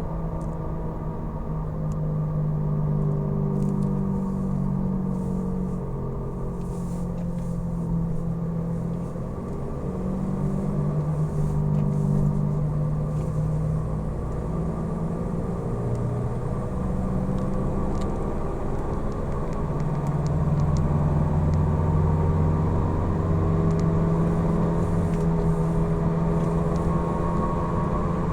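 Falken Azenis FK510 tyres making loud road noise while driving: a steady droning hum of several tones that drift slowly up and down in pitch with road speed.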